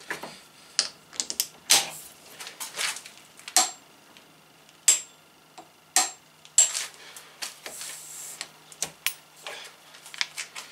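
Irregular sharp metallic clicks and clinks, some with a brief high ring. A steel socket and a click-type torque wrench are being fitted to, and handled on, a coupling clamped in a bench vise.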